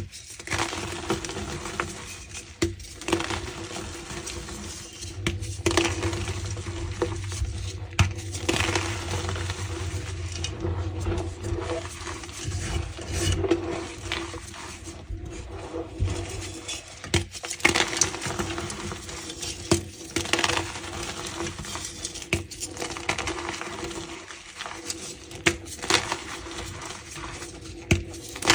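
Reformed block of gym chalk being crushed, crumbling with squeaky crunches and irregular sharp cracks throughout.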